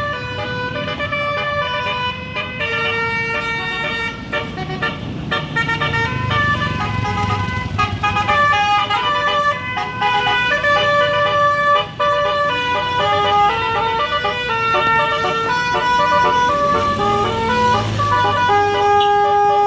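Basuri multi-tone musical air horn playing a telolet melody in a run of held notes, over a vehicle engine running.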